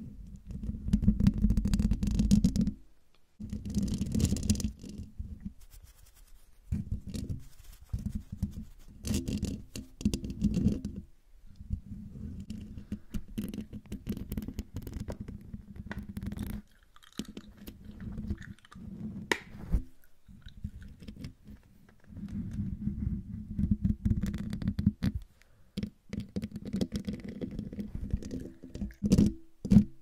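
Long fingernails scratching directly on the metal mesh grille of a condenser microphone, close-miked, so the scratching comes through deep and crackly. It comes in bursts of a few seconds with short pauses between them.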